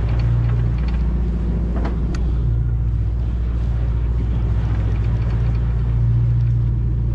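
Boat engine running with a steady low drone, and water washing around the hull.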